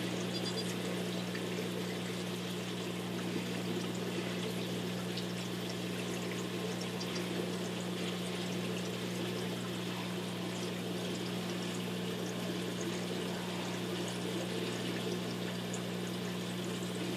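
Saltwater aquarium's circulating water pouring and trickling steadily, over the steady hum of its pumps.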